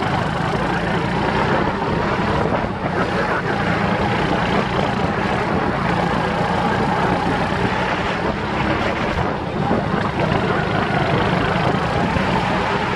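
Go-kart engine running hard, heard from on board the kart, with a steady engine note under dense noise; the level dips briefly a couple of times.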